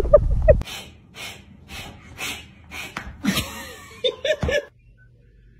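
A loud low rumble with short voice-like calls cuts off suddenly. It is followed by a person's breathy gasps, about two a second, and a brief run of short voiced, laugh-like sounds about four seconds in.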